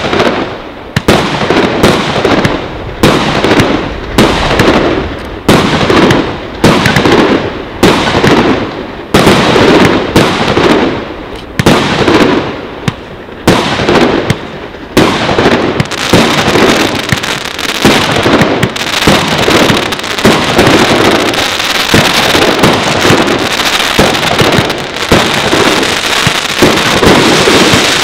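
Fireworks battery firing shot after shot, each launch followed by its burst, about two a second. About halfway through the shots run together into a dense, continuous crackling.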